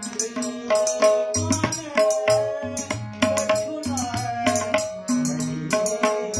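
Tabla and harmonium playing a Holi accompaniment: quick tabla strokes, with the bass drum's pitch sliding now and then, over steady held harmonium notes.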